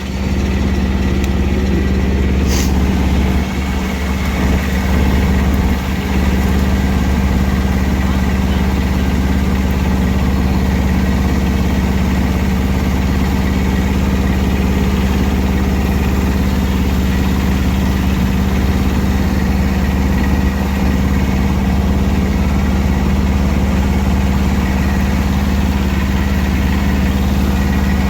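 Engine running at a steady speed throughout, with no change in pitch, and one brief click about two and a half seconds in.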